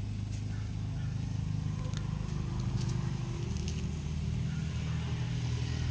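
Low, steady hum of a motor vehicle's engine, its pitch shifting about three seconds in, with a few faint clicks over it.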